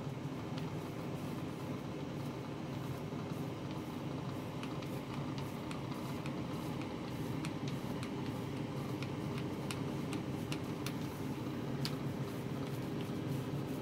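Small foam paint roller rolling back and forth along a painted frame: a steady soft rolling noise with a few faint ticks.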